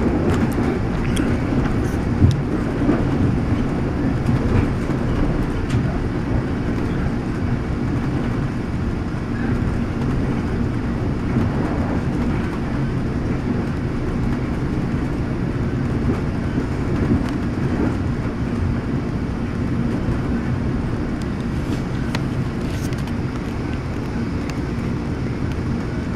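Steady rumble of a commuter train running along the track, heard from inside a 1978 Hawker Siddeley Canada bilevel coach, with a sharp click about two seconds in.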